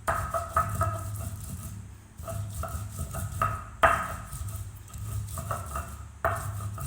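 A heavy stone pounding chili, garlic and coriander into chutney: about a dozen irregular knocks, each with a short ringing tone, the hardest blow about four seconds in. A steady low hum runs underneath.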